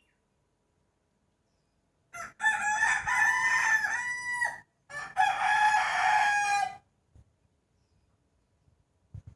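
Rooster crowing twice in quick succession. Each crow is a long call of about two seconds, the first starting about two seconds in.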